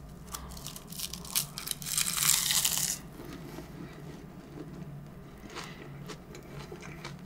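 Close-miked eating of an egg tart: crackling bites into the flaky pastry shell, with a loud crunch lasting about a second from around two seconds in, then quieter chewing with small crackles.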